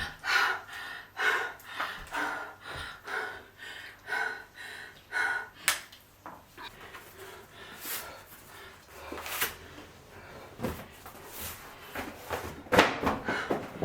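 Household handling noises: a run of small knocks and clicks, with a few sharper clicks in the middle and a louder clatter near the end.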